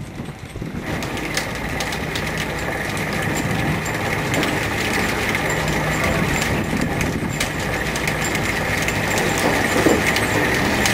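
Fishing-boat machinery running steadily on deck: engine hum with a steady higher whine that comes in about a second in, and scattered light clicks and taps throughout.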